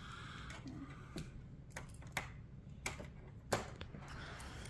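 Irregular light plastic clicks and clacks from a toy slot-car track and its cars being handled, with one louder clack about three and a half seconds in.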